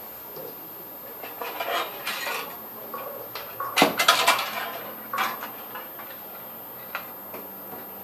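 Metal-framed solar panel being picked up and turned over on a glass tabletop: handling scrapes and clatters, the loudest a cluster of sharp knocks about four seconds in, with a couple of light ticks near the end.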